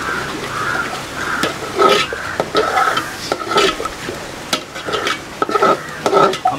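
Metal ladle stirring and scraping a thick masala paste in a metal pot, in quick back-and-forth strokes about two a second, with sharp clinks of metal on metal.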